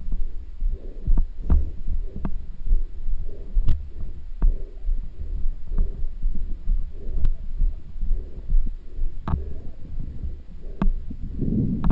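Muffled thuds of footsteps on wet grass, about two a second, with occasional sharp knocks of the head-mounted action camera, over a steady low rumble on the microphone.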